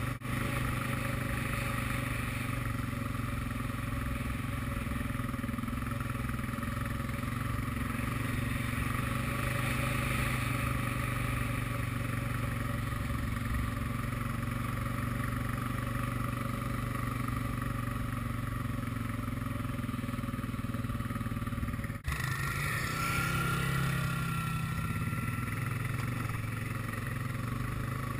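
ATV engine running steadily as the quad is ridden. About three-quarters of the way through there is a sudden break, after which the engine note shifts and a higher whine rises briefly.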